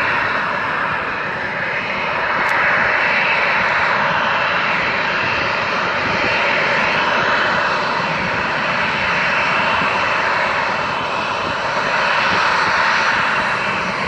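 Boeing 737-700's twin CFM56-7B turbofan engines running as the airliner taxis along the runway: a steady jet noise that swells slightly twice.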